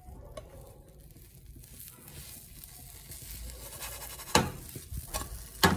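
Faint sizzling of a folded tapioca crepe in a hot nonstick frying pan on a gas burner, with two sharp knocks a little after four seconds in and near the end as the pan is handled.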